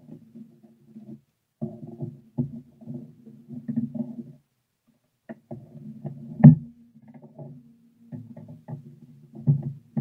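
Handling noises as a Torpedo 10/30 portable typewriter is turned over onto its top on a table: low rubbing and bumping, with one sharp knock about six and a half seconds in.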